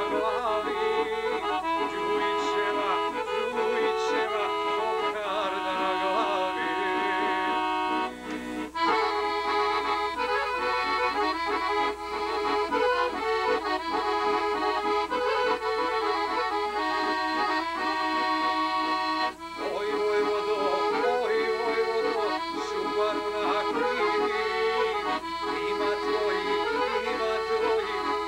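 Chromatic button accordion playing a tune, with brief breaks in the playing about eight and nineteen seconds in.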